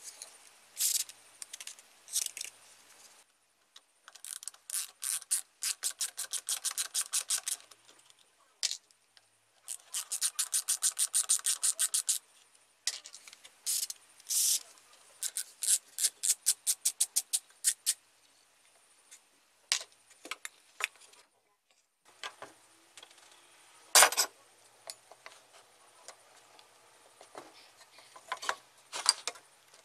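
Quick, rhythmic scraping of a thin metal pick against the cast-aluminium motor housing of a Makita 7100-B chain mortiser, in runs of about five or six strokes a second, as packed wood chips are scraped out. A single sharp clank about 24 seconds in.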